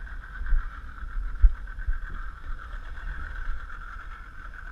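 Yamaha 90 outboard motor running steadily at trolling speed, with an uneven low rumble and a few dull thumps, the loudest about a second and a half in.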